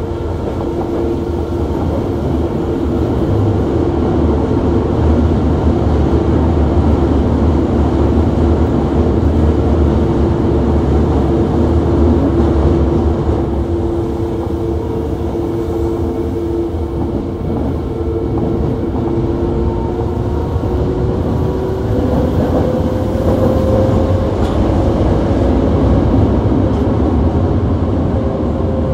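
Toei Asakusa Line 5300 series subway car running, heard from inside the car above its VVVF inverter equipment: a steady running rumble with two steady whining tones. The higher tone rises slowly in pitch in the last few seconds.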